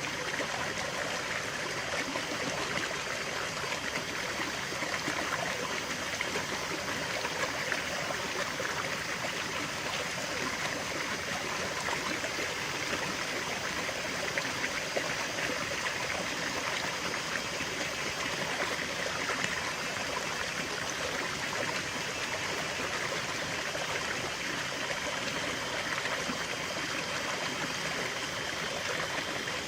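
Stream flowing steadily over rocks, a continuous bubbling and trickling rush of water.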